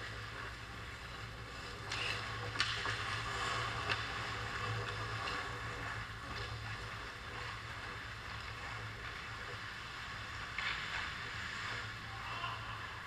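Ice hockey play on a rink: skates scraping on the ice, with a few sharp knocks of sticks and puck about two to four seconds in, over a steady low hum.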